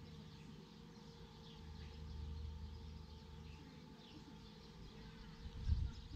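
Scattered faint bird chirps over a low rumble that swells about two seconds in, with a single low thump near the end.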